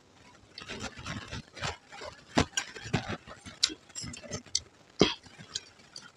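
A metal spoon scrapes and clinks against a stainless steel plate while dry puffed rice (muri) is stirred into ghugni, with crisp crackling of the puffed rice. Several sharp clinks come through, the loudest about five seconds in.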